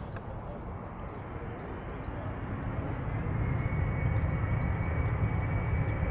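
Jet airliner's engines running, their rumble growing louder from about halfway through as a steady high whine comes in.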